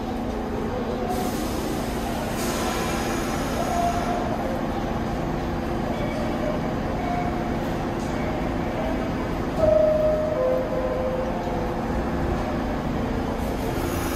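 New York City subway train running on the rails, a steady rumble of wheels and cars with a few short high tones, the loudest a little under ten seconds in.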